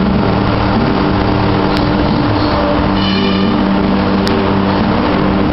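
Spindle on a KUKA robot arm milling a polystyrene foam block: a steady, loud machine noise with steady low hums.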